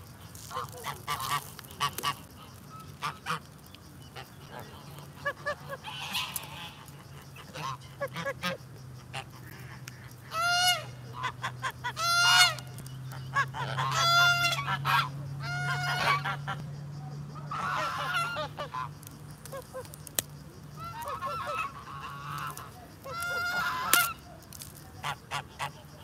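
Domestic geese honking, a run of repeated calls starting about ten seconds in, with short sharp clicks between them and a low steady hum underneath.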